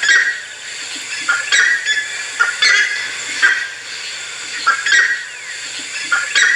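Greater rhea calling: short calls repeated every second or so, often in close pairs.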